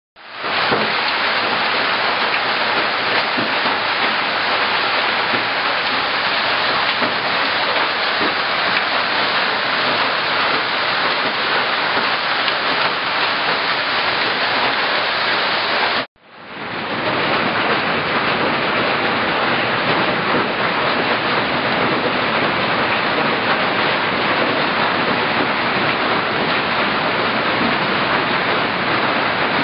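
Hailstorm: hailstones pelting down in a dense, steady rush of noise. It cuts out for a moment about halfway through, then comes back at the same level.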